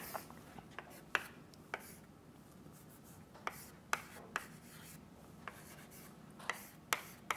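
Chalk writing on a blackboard: faint, irregular taps and short scratches as letters are chalked on the board.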